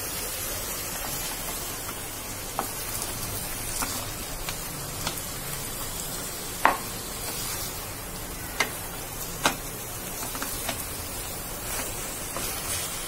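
Marinated chicken pieces sizzling in hot oil in a kadhai as a wooden spatula stirs them over a high flame, with a few sharp knocks of the spatula against the pan in the second half.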